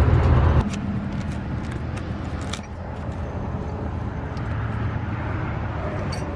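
A vehicle engine idling steadily with a low hum, louder for the first half second. A few light clicks and rustles of a cardboard box being handled.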